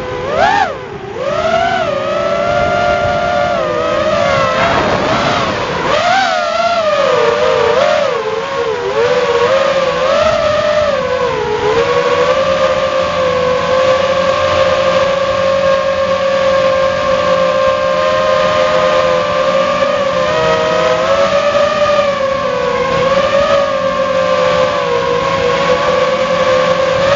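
Whine of a Walkera F210 FPV racing quadcopter's motors and propellers in flight, heard from its onboard camera. The pitch rises and falls quickly with the throttle for about the first twelve seconds, then holds nearly steady.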